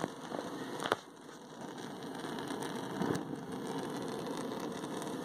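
Propane burner flame of a Force 10 Cozy Cabin heater (model 10000), burning with a steady hiss. A sharp click comes about a second in, after which the hiss dips briefly and builds back.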